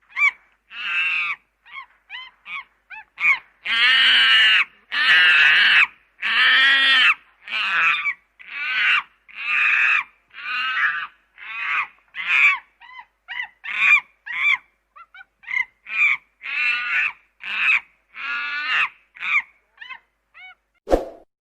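Monkey calling over and over: longer loud calls alternate with many short, quick chirps, about two calls a second. A short knock comes near the end.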